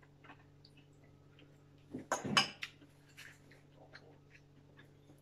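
Eating at a table: forks clicking and scraping on ceramic plates, with small mouth noises, scattered through. A louder burst of clicks and clatter comes about two seconds in.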